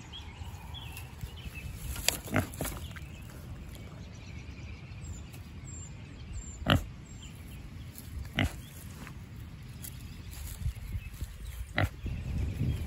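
A pig rooting in dry leaves and sticks, with about five sharp clicks or knocks scattered through, the loudest about halfway.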